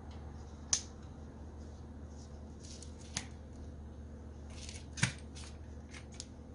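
Small clicks and light rustling of plastic parts and wires being handled inside the opened housing of a corded electric drill as it is reassembled, with three sharper clicks spread over a few seconds.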